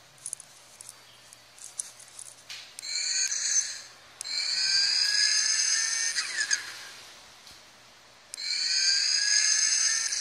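Rechargeable turbo keychain's electronic turbo spool sound: a high whistle that comes three times as its compressor wheel is spun, the longest one drifting slightly down in pitch and fading slowly. Light clicks of the wheel being flicked come first.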